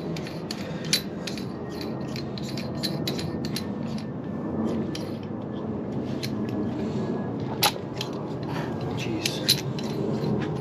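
Metal hand tools clicking and clinking against a threaded coilover while its ride height is adjusted: quick irregular clicks at first, then sparser, with a couple of louder clinks in the second half, over a steady low background noise.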